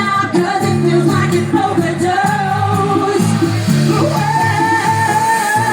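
Live dance-pop music played loud over the PA: a pulsing synth bass line under long, wavering held vocal notes.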